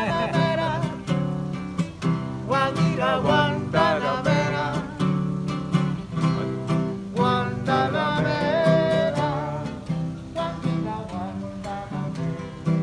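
Acoustic guitar strummed in a steady rhythm, with a voice singing along in a wavering melody.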